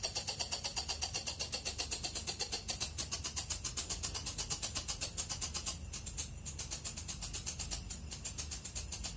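Walang kecek bush cricket (katydid) calling: a high-pitched, fast, even train of chirping pulses, slightly quieter from about six seconds in.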